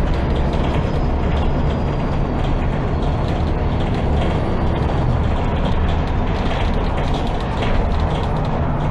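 Cabin of a MAN Lion's City G articulated city bus under way: the engine and drivetrain running with a steady low hum over road noise, with frequent small rattles and clicks from the bus's fittings.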